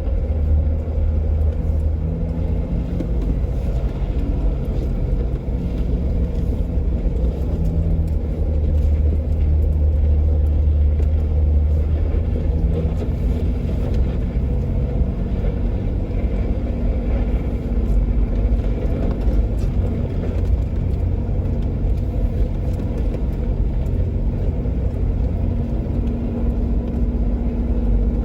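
Jeep Wrangler JK driving steadily at low speed up a dirt trail: a continuous low engine and drivetrain rumble with tyre noise, no revving up or down.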